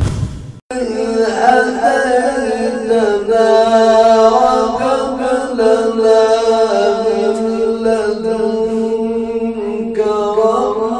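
A man's voice in melodic Quran recitation (tajwid) through a handheld microphone, drawing out long, ornamented notes. It pauses briefly near the end before starting a new phrase.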